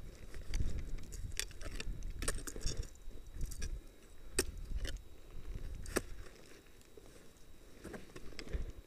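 Ice axes striking and scraping snow-covered rock: a series of sharp metallic clicks spaced irregularly, about a second apart, over crunching snow and the low rumble of the climber's movement against the helmet camera.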